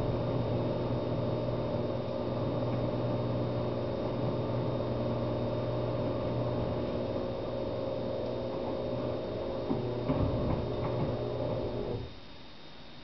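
An electric appliance motor running with a steady hum, with a few clicks near the end, cutting off suddenly about twelve seconds in.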